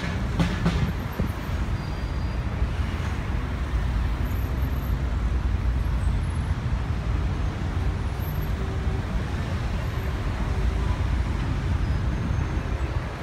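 Steady road traffic noise: a continuous low rumble of many vehicles driving past.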